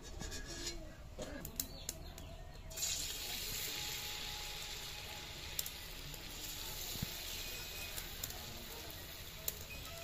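Hot oil in a kadai sizzling as dabs of palm-fruit batter are dropped in to fry as fritters; the sizzle starts suddenly about three seconds in and holds steady with occasional pops. Before it, a few light clicks over a quieter background.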